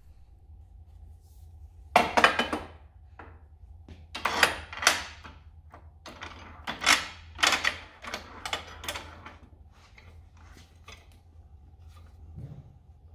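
Metal pipe clanking and rattling as it is handled and set into a chop saw's vise. Several clusters of sharp knocks and clatters run over about seven seconds, and a few lighter taps follow.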